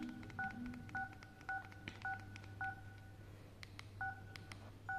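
Key beeps from a Jio Bharat keypad phone as its navigation key is pressed repeatedly to scroll: short identical beeps, each with a click, about two a second. The beeps pause for about a second, with a few soft key clicks in the gap, then two more come near the end.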